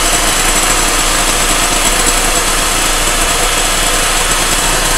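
Electric hand mixer running steadily, its beaters whipping a fluffy mixture in a glass bowl while sugar is added.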